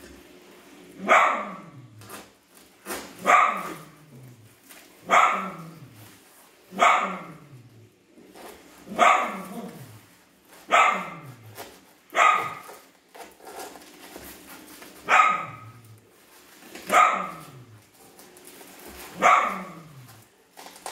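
A dog barking over and over, about ten barks spaced roughly two seconds apart, each falling in pitch at its end.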